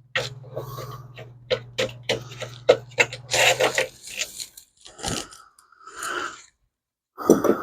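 Clicks, knocks and scraping of old metal dash parts being handled and taken apart, over a steady low hum that stops about halfway through.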